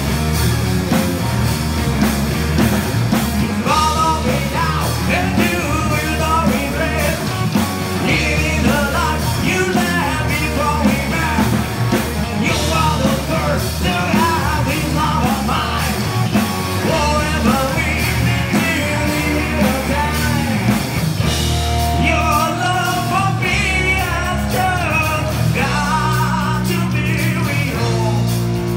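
Live heavy rock band playing at full volume: a singer sings into the microphone over electric guitar, bass guitar and drums.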